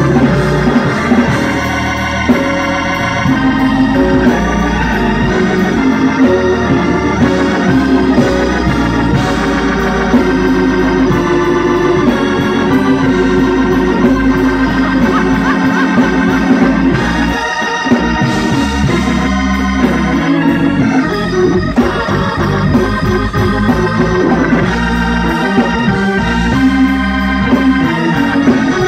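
Two-manual electronic church organ playing gospel chords, with a steady low bass line underneath.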